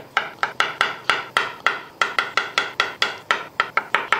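Knife slicing a soft boiled gram-flour gatta log into coins on a wooden cutting board: a quick, even run of sharp knocks as the blade hits the board, about four a second.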